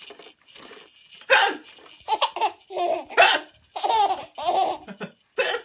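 A man's sharp hiccups, about three of them two seconds apart, each answered by a four-month-old baby's high, breathy laughing in short bursts.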